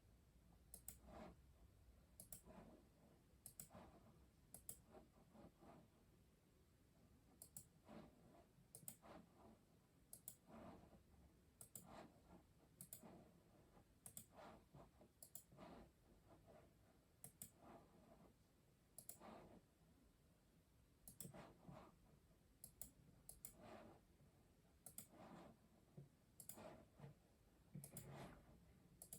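Faint keystroke clicks from a custom mechanical keyboard, typed slowly and unevenly at about one or two keys a second with short pauses.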